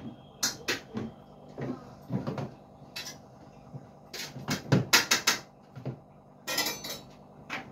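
Knocks, clicks and rattles of containers and plastic shelves in an open refrigerator as a toddler climbs on them and handles things, a dozen or so sharp knocks with a quick cluster about four to five seconds in.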